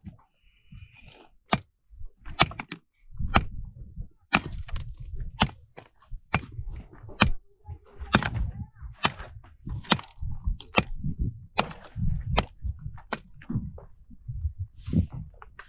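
A string of sharp knocks, hard objects striking each other at a fairly steady pace of a little more than one a second, each with a dull thud beneath the crack.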